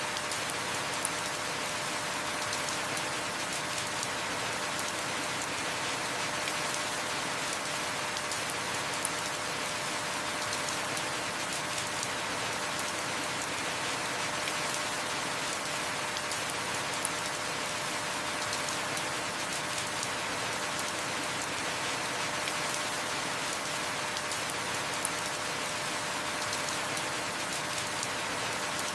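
Heavy rain falling steadily, an even hiss of drops with small ticks about every eight seconds.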